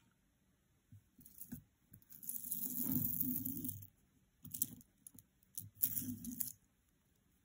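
Costume jewelry being handled on a cloth-covered table: a rustle lasting under two seconds, then two shorter bursts of beads and metal bracelets shuffled as a tangle of bracelets is pulled apart.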